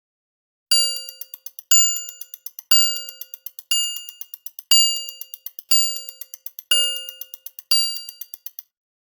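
Timer bell dinging about once a second, eight times. Each bright ding is followed by a quick run of fainter strikes as it dies away.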